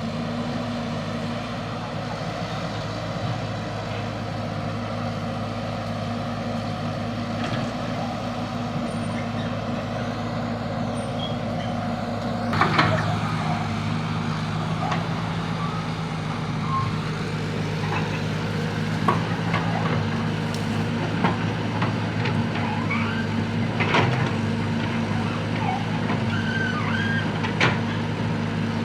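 Excavator's diesel engine running steadily. About twelve seconds in there is a loud knock, the engine note rises, and scattered knocks and clanks follow.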